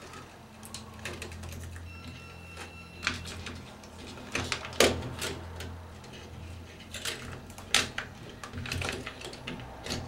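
Irregular light clicks and scrapes of copper wire pairs being hooked by hand into the metal clips of a 66 punch-down block, over a steady low hum.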